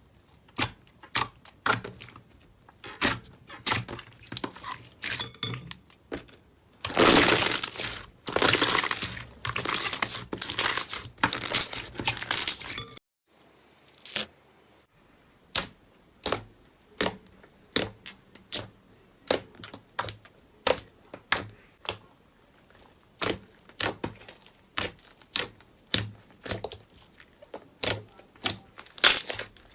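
Slime being pressed and squeezed by hand, giving crisp pops and clicks. A stretch of dense crackling comes in the first half, then after a short break the pops come singly, about one every second or so.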